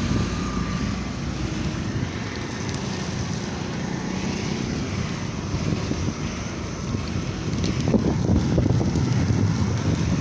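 Wind rushing over the microphone of a moving bicycle, with a low rumble of tyres on the road. It gets louder and rougher about eight seconds in.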